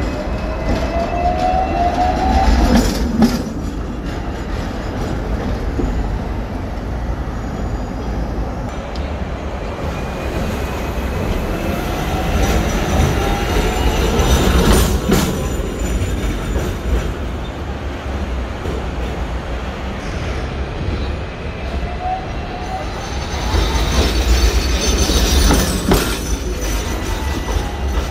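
Seventh-generation Hong Kong double-deck trams starting off one after another. Three times the electric traction motors' whine rises in pitch as a tram accelerates, over the rumble of steel wheels on the rails, and a sharp clack is heard as each one gets going.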